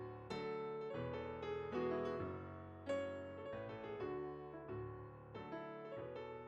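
Solo piano music: a gentle melodic piece of struck notes and chords, with one stronger chord about three seconds in.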